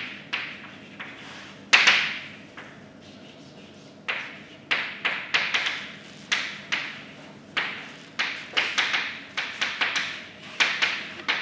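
Chalk writing on a blackboard: a run of quick taps and short scratchy strokes as letters are chalked up. After the first few strokes there is a gap of about two seconds, then the strokes come steadily in quick clusters until near the end.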